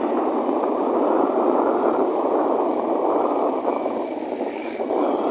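Steady wind and road noise on the microphone of a moving motorcycle, easing a little about four seconds in and rising again near the end.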